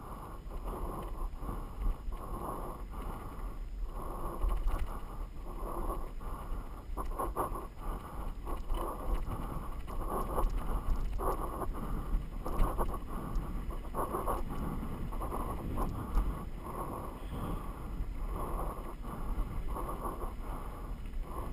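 Mountain bike riding fast down a rough gravel dirt trail: wind rumbling on the microphone, with irregular muffled rattling and knocks as the bike jolts over the bumpy surface.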